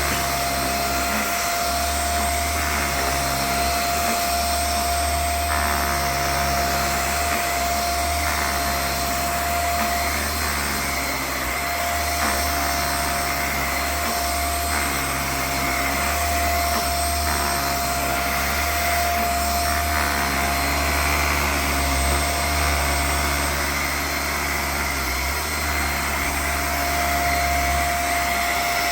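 Raycop Lite handheld allergen vacuum running steadily as it is passed back and forth over a mattress, its sound shifting slightly every second or two with the strokes.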